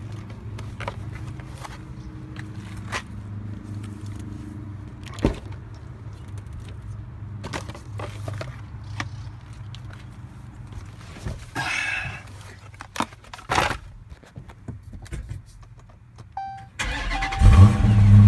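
Footsteps and a car door opening and shutting, then short chime tones and the Dodge Challenger Scat Pack's 6.4-litre HEMI V8 cranking and firing up with a brief flare near the end, settling into a loud steady idle.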